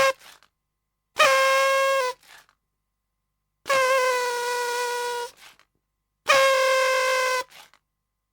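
Horn sounding one short blast, then three long blasts of about a second to a second and a half each. Each blast holds one steady tone that dips slightly in pitch just after it starts.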